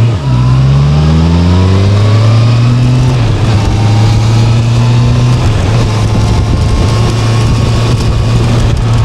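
Motor vehicle engine, most likely a motorcycle, pulling away: the engine note dips briefly near the start, rises steadily for about three seconds, then holds at a constant pitch while cruising.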